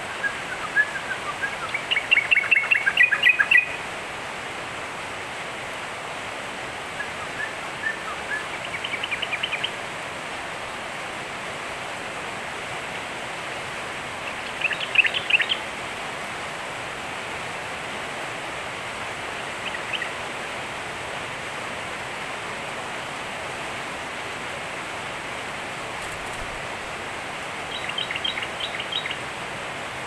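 Yellow-vented bulbul chirping in short bursts of quick notes, about five phrases separated by long pauses, the loudest about two seconds in. A steady hiss runs underneath.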